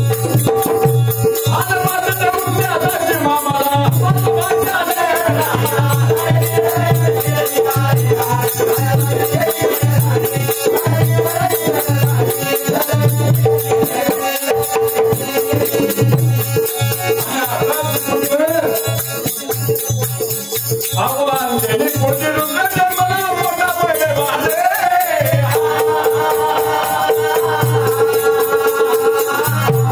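Marathi folk music of a shahiri performance: a wavering melody runs over a steady held drone, with a fast, continuous shaker-like rattle and a low drum pulse. The held drone drops out around the middle and returns near the end.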